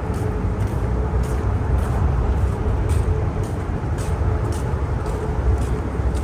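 Footsteps crunching in snow at a walking pace, about two steps a second, over a loud low rumble, like a passing vehicle or train, that sets in at the start.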